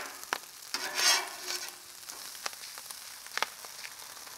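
Rice sizzling on a hot flat-top griddle, with sharp pops of grains popping like popcorn because the griddle is still a little too hot. A metal spatula scrapes across the griddle about a second in.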